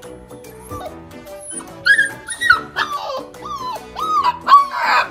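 Husky puppy whining in a run of short cries that each fall in pitch, starting about two seconds in and coming thicker near the end, over background music.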